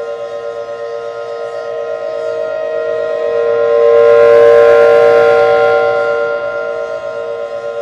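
Federal Signal 500DHTT outdoor warning siren sounding a steady two-note chord with no change in pitch. It swells to its loudest about four to five seconds in as the rotating siren head turns toward the listener, then fades as it turns away.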